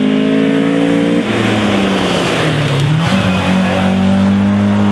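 Opel Kadett C race car's four-cylinder engine running at high revs as the car sweeps past through a bend. The pitch climbs, drops abruptly about a second in, then pulls on again at a lower, steadier pitch.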